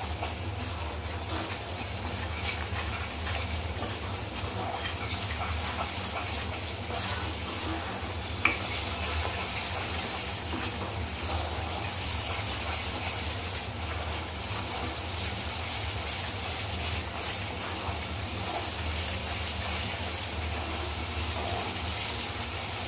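Well-fried onion-tomato masala paste sizzling in a kadai while a wooden spatula stirs and scrapes through it, over a steady low hum. One sharp tap about eight and a half seconds in.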